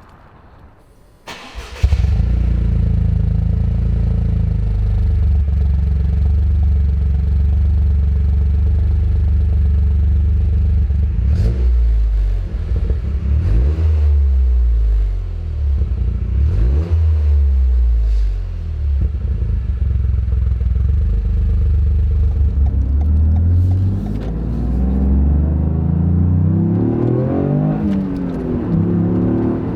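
Toyota GR Yaris 1.6-litre turbocharged three-cylinder through a Scorpion resonated GPF-back exhaust, starting up suddenly about two seconds in and then idling. It is blipped a few times through the middle, and near the end it is revved repeatedly, rising and falling.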